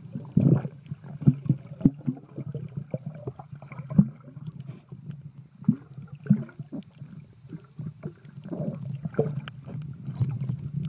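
Muffled underwater sound from a camera held below the surface while snorkeling: a steady low rumble of moving water with irregular clicks and bubble pops.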